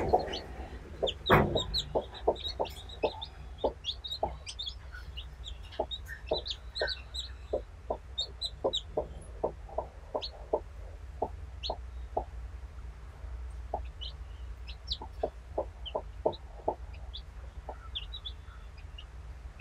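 Broody hen clucking in short, irregularly spaced low clucks, with newly hatched chicks peeping in brief high notes. One sharp click about a second in.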